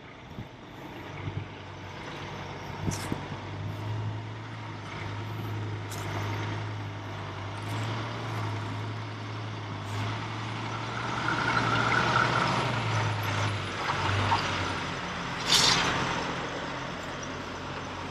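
Heavily loaded dump truck's diesel engine running steadily under way, heard from inside the cab, with a short, loud hiss of air near the end.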